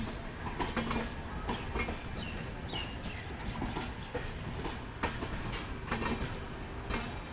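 Passenger train coaches rolling slowly past on a departure, their wheels clattering and clicking over rail joints and points, with a steady low rumble underneath.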